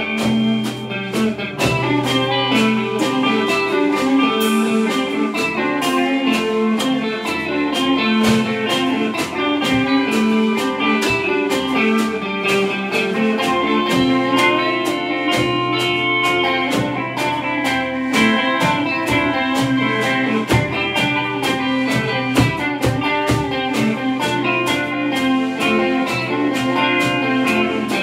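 Instrumental rock played live by two electric guitars and a Gretsch drum kit, the drums keeping a steady beat under the guitars.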